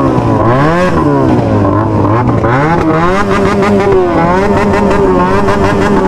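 Motorcycle engine being revved: the pitch swings up and down, settles low, then climbs about three seconds in and holds at a higher speed, with a fast crackle behind it.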